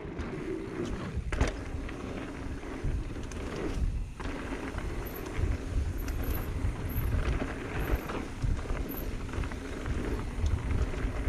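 Mountain bike ridden fast down a dirt singletrack: tyres rolling over dirt and gravel, the bike rattling, and wind rumbling on the camera microphone, with one sharp knock about a second and a half in.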